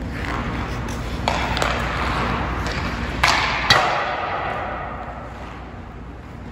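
Hockey skates scraping across rink ice, then sharp cracks of a hockey stick shooting a puck. The loudest crack comes about three and a half seconds in and rings out, echoing in the arena.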